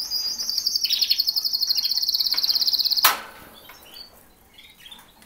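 Canary singing a fast, high trill that cuts off about three seconds in at a sharp click, followed by softer scattered chirps.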